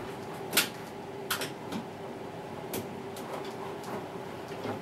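Sharp clicks and knocks of metal and plastic as a washing machine's drum suspension spring is worked loose by hand, the loudest knock about half a second in and a few smaller ones after it, over a faint steady hum.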